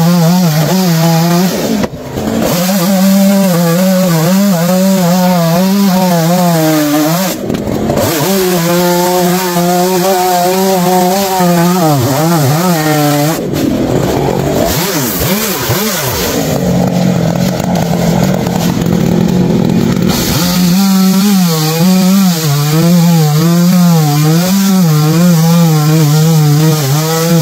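Two-stroke gasoline chainsaw running at high revs and cutting through coconut palm trunk, its pitch wavering as the chain loads up in the wood. The sound breaks off briefly a few times, and in the middle stretch the engine note drops and climbs again before settling back to a steady high pitch.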